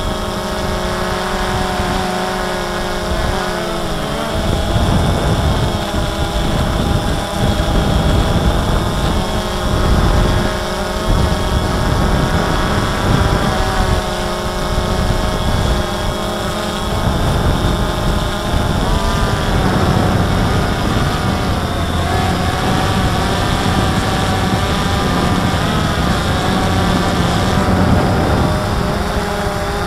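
DJI Phantom 2 quadcopter's motors and propellers whining, heard from the camera mounted on the drone, the pitch wavering up and down as the motors change speed. Wind rumbles on the microphone underneath.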